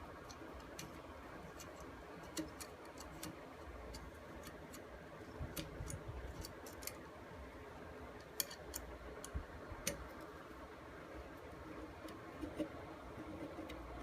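Faint, irregular small clicks and ticks of a hex key working screws out of an Olympia Moca grinder's burr assembly.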